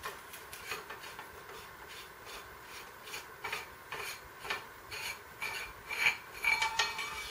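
Barrel of a Milsig Paradigm Pro paintball marker being unscrewed by hand: irregular scraping and rubbing of the threads, with light metallic clinks that come thicker toward the end.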